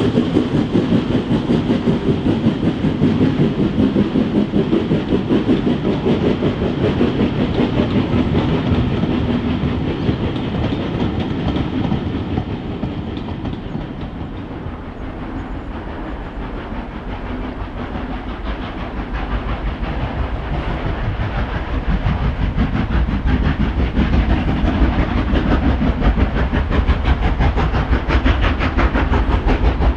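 A steam locomotive hauling a train, with a fast, even rhythm of exhaust beats and the train running on the rails. The sound eases off around the middle, then grows louder again toward the end.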